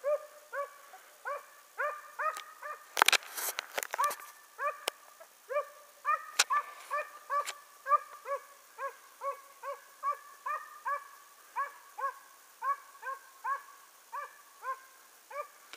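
A hunting hound baying on a hare's trail: a steady string of short, high yelping barks, about two a second. A few sharp clicks come about three seconds in.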